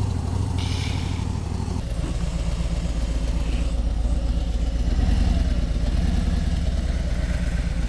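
Touring motorcycle's engine running steadily at low speed as the bike rolls slowly, heard from the rider's seat. A brief hiss comes in about half a second in and ends just under two seconds in.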